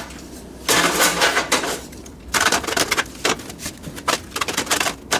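Irregular bursts of scraping and clattering from the sheet-metal parts of a PC case being worked by hand.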